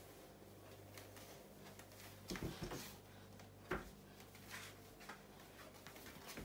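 Near silence: faint room tone with a low steady hum and a few soft knocks and taps around the middle.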